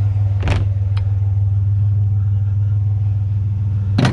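Truck engine running steadily with a low, even hum, with a short knock about half a second in and a few quick clicks near the end.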